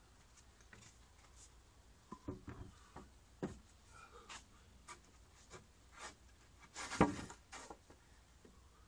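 A wooden joist board being set into a wooden floor frame: scattered light knocks and scrapes of wood on wood, the loudest knock about seven seconds in.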